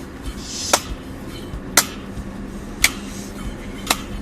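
Sharp clicks at an even pace of about one a second, over faint music and a low steady hum.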